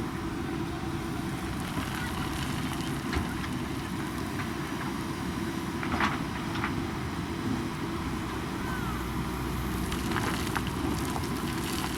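JCB backhoe loader's diesel engine running steadily, with a few knocks and clatters from the machine at work, the loudest about six seconds in.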